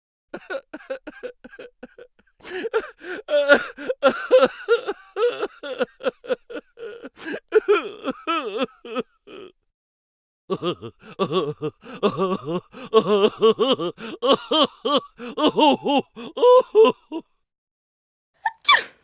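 Cartoon-style comic vocal sound effect: a high-pitched voice gasping and chattering in rapid choppy syllables. It comes in two runs of several seconds each, followed by a short swooping sound near the end.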